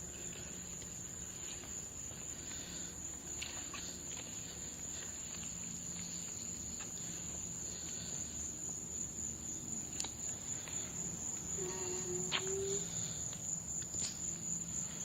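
Crickets chirping in a steady high-pitched trill, with a few faint clicks and a short low tone about twelve seconds in.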